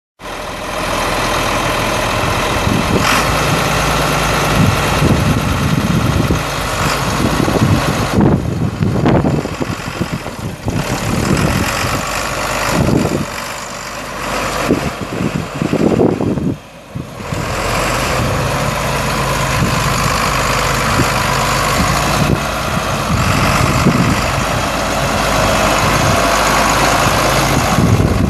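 A John Deere 4840 tractor's 7.6-litre six-cylinder turbo diesel runs steadily as the tractor drives slowly past. Its level wavers and dips sharply for about a second two-thirds of the way through.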